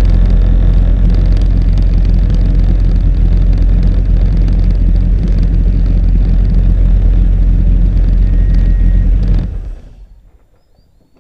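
Mercury MerCruiser 496 Mag HO 8.1-litre V8 sterndrive engine of a Pantera 24 powerboat running steadily at low speed, then switched off about nine and a half seconds in, its sound dying away within half a second.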